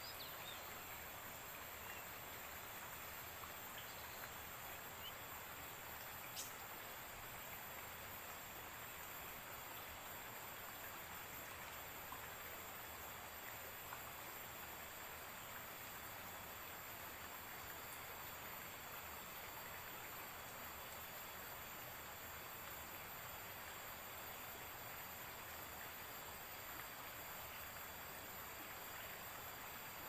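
Faint steady hiss of a river flowing below, with thin steady high-pitched tones over it and one light tick about six seconds in.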